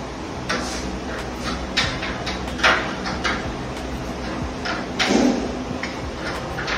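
Plywood box-bed lid being moved by hand on a newly fitted Ebco hydraulic lift. The wood and the lift fittings give irregular knocks and clicks, with a heavier clunk about five seconds in.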